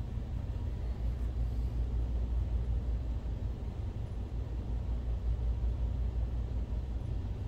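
Epson Home Cinema 8100 LCD projector's cooling fans running steadily with a low rumble while the lamp warms up, the lamp blower fan newly replaced.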